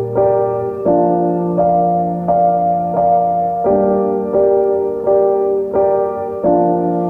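Background music: a piano-like keyboard playing a steady pattern of notes and chords, a new one about every 0.7 seconds.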